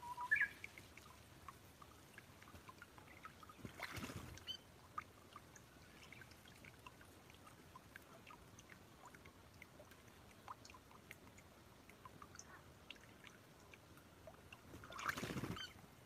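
Faint trickling and scattered small drips of water in a shallow garden pond, with a short high chirp just after the start. Two brief rushes of noise come about four seconds in and near the end; the later one comes as the brown-eared bulbul leaves its perch for a log across the pond, its wings flapping.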